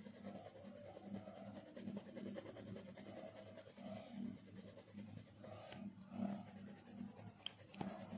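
Graphite pencil shading on paper: faint, quick back-and-forth scribbling strokes, repeating a few times a second as a dark swatch is filled in.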